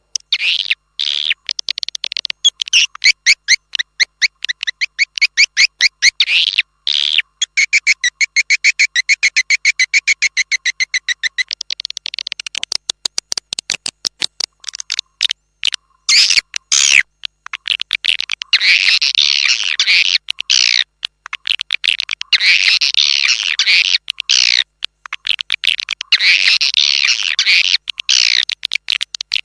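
Swiftlet calls, a recording of the kind played to lure edible-nest swiftlets: fast, even trains of high chirps for the first half, then loud chattering bursts repeating every two to three seconds.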